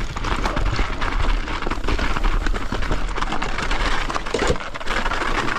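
Mountain bike being ridden on a snowy trail: a continuous rush of riding noise with a low rumble and many small clicks and knocks.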